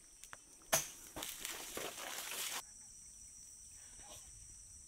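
Steady high-pitched drone of jungle insects in two tones, with a sharp click under a second in and about a second and a half of rustling through leaf litter and undergrowth that stops abruptly halfway through.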